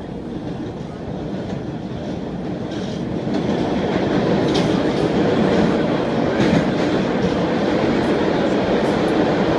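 Subway train running, heard from inside the car: a steady rumble of wheels on rails that grows louder about three seconds in, with a few faint clicks.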